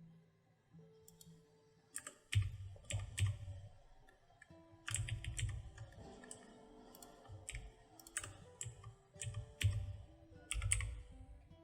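Computer keyboard and mouse clicking: irregular sharp taps, often several in quick succession, over faint steady background tones.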